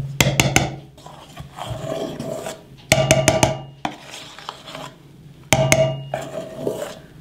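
A wooden spoon knocked against the rim of a stainless steel mixing bowl in three quick bursts of three or four taps, with the soft scrape of the spoon folding a thick egg-white batter between them.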